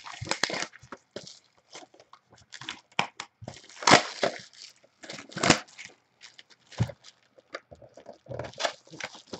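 Plastic shrink wrap being torn off a trading-card box and crumpled by hand: irregular crackling and rustling, with louder crinkles about four and five and a half seconds in.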